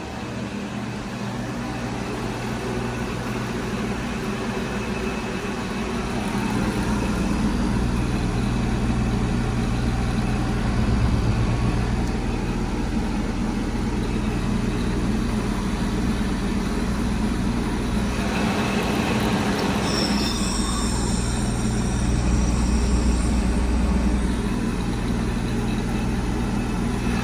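Rheem heat pump outdoor unit running, a steady compressor hum that grows louder about six seconds in. Near the end comes a rush of noise, then a few seconds of high whistling hiss, as the unit changes over into its defrost cycle.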